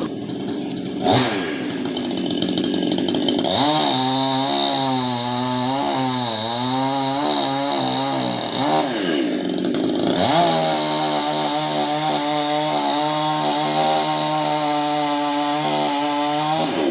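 Two-stroke chainsaw, most likely cutting a coconut palm trunk: it idles with a short blip, then runs at full throttle twice, around four and ten seconds in, dropping back to idle in between and near the end. In the first spell its pitch sags and recovers as the chain works under load.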